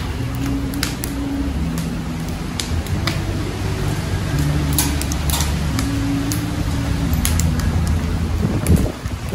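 Wood fire crackling in a metal drum, with sharp pops scattered through, over a low drone of deep held tones that shift in pitch every second or so.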